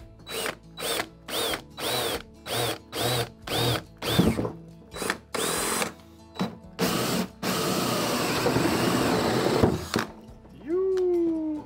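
Power drill with a hole saw cutting a hole through the car's body panel. It starts with a string of short trigger pulses, about two a second, each with a whine that rises and falls. Then come longer runs and a steady cut of a few seconds, and near the end a falling tone.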